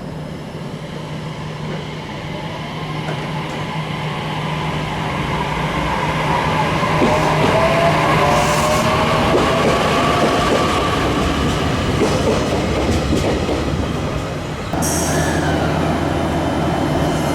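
JR Kyushu 817 series electric train, set VT016, running, with whining tones that slide in pitch and a sound that grows louder over the first several seconds. This set is known for an unusual running noise. The sound changes abruptly about fifteen seconds in.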